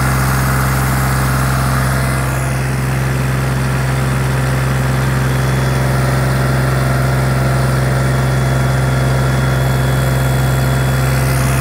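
Sonalika DI 35 tractor's diesel engine running steadily under full load, pulling a disc harrow through sandy soil, heard from the driver's seat. The new tractor is being run in by working it at full load.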